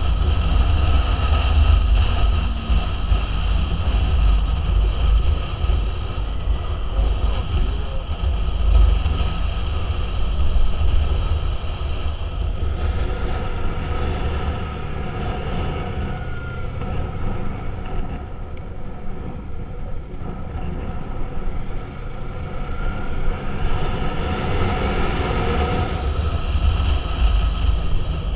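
Motorcycle cruising on a paved road: steady engine and tyre noise under heavy wind rumble on the microphone.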